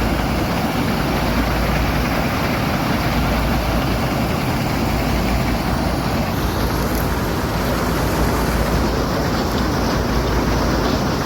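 Wheat-harvesting machinery running steadily, a loud, even engine and machine noise with no pauses.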